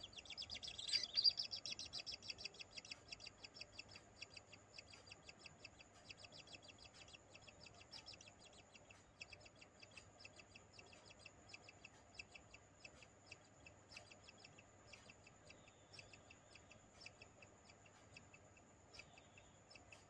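Kingfisher nestlings giving fast, high chirping calls, several a second, loudest about a second in and then fainter.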